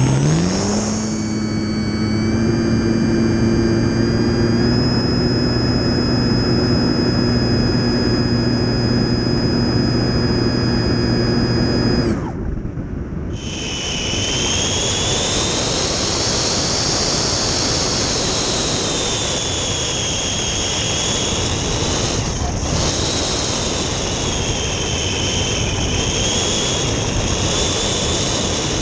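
RC airplane's motor and propeller spinning up and then running with a steady buzz. About twelve seconds in, the buzz drops away for a moment and comes back as a higher whine that slowly rises and falls, over air rushing past the onboard microphone.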